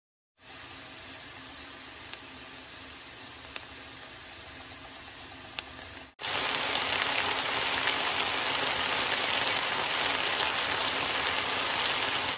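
Diced onion sizzling in oil in a frying pan, steady with a few small pops. About six seconds in it cuts suddenly to a louder steady sizzle of diced potatoes frying.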